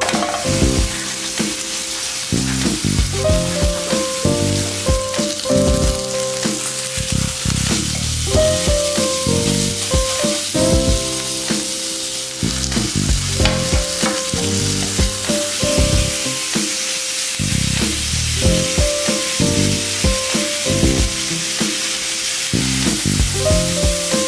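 Rib-eye steak sizzling as it sears in a hot, oiled grill pan, the steady hissing sizzle starting the moment the meat goes down.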